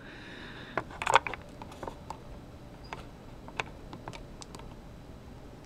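Scattered light plastic clicks and taps, a small cluster about a second in and single ones after: AAA batteries and test leads being handled in the plastic battery compartment of an LED switch light, with presses on its switch.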